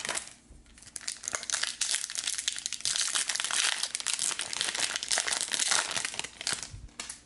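A foil trading-card pack being torn open and its wrapper crinkled by hand: a dense crackling that starts about a second in and stops just before the end.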